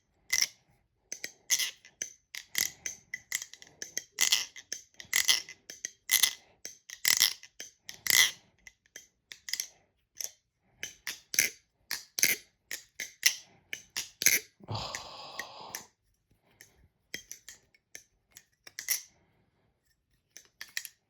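Metal balisong trainer, likely a Squid Industries Squiddy B, being flipped: its handles clack and click together in irregular runs of sharp, bright metallic clicks, with pauses between tricks.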